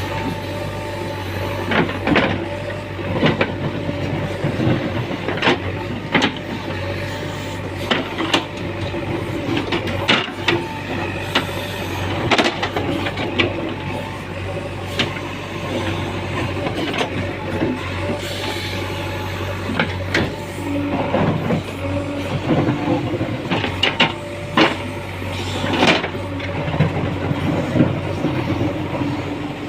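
JCB 3DX backhoe loader's diesel engine running steadily, with frequent irregular knocks and clanks from the machine at work.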